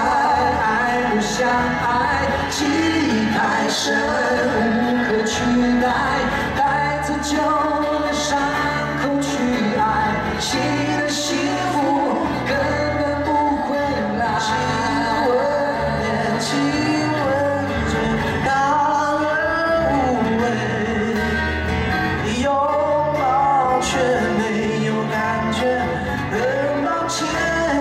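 Live amplified pop performance: male voices singing a melody over acoustic guitars and a steady low accompaniment.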